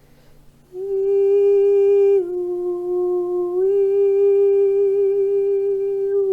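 A woman's voice toning in Light Language: one long held note that starts about a second in, dips slightly lower for a second and a half, then rises back and is held until it stops near the end.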